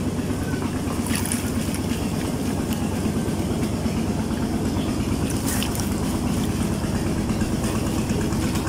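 Small engine running steadily with a low, fast-pulsing throb, with a few faint splashes of water as a mesh box trap is lifted out of shallow water.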